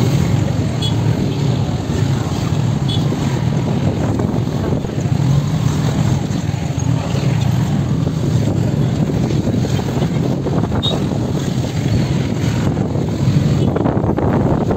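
Wind rumbling steadily over the microphone of a moving motorcycle, with the motorcycle's engine running and street traffic underneath.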